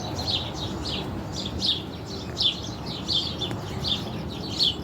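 Bird chirping repeatedly in short, falling chirps, about two or three a second, over a steady low background rumble.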